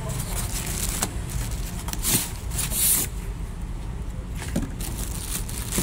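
Clear plastic packaging crinkling and rustling as it is handled in the printer's carton, loudest in two bursts about two to three seconds in, over a steady low rumble.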